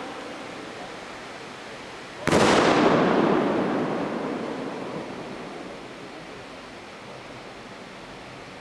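A homemade aerial firework bursting overhead about two seconds in: one sudden loud bang that rumbles and echoes away slowly over the next few seconds.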